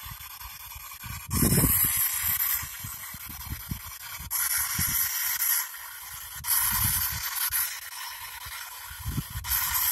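PXB-7 spirit box sweeping through radio frequencies: a continuous hiss of static that jumps up and down in level every couple of seconds, with short choppy low fragments underneath.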